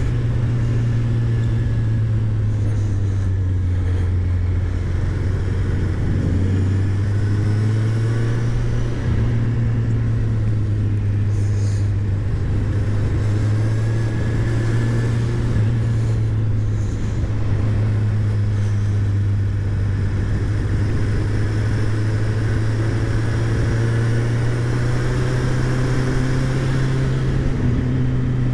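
Kawasaki Z1000's inline-four engine heard from the bike while riding through bends, with a steady drone and its pitch rising and falling several times with the throttle, over a constant rush of wind noise.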